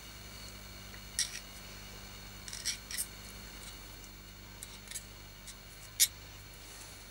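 Metal tweezers clicking against a petrol lighter's metal insert while packing cotton wool into it: scattered light, sharp metallic ticks, several close together about three seconds in and the sharpest near the end.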